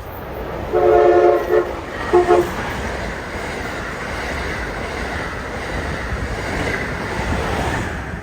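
A train horn sounds a chord of several tones in two blasts about a second in, the first longer and the second short. It is followed by the steady rush and wheel clatter of a passenger train passing at speed through a station.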